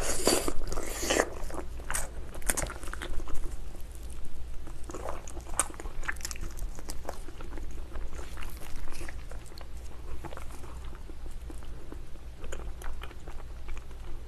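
Close-miked biting and chewing of spicy braised ox foot, soft long-simmered meat and tendon, with wet smacking clicks. The bite in the first second or so is the loudest part, and irregular chewing clicks follow.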